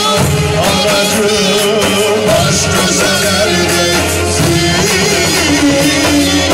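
Loud Turkish dance music playing steadily, with an ornamented, wavering melody line over a steady bass.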